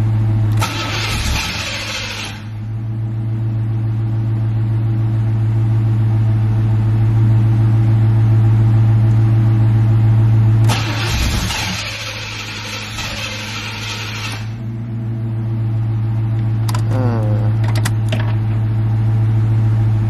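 C4 Corvette V8 turning over on the starter without catching, a steady drone with two spells of hissing, about a second in and again from about eleven seconds. The owner takes the hiss for air escaping from one side of the engine while it cranks.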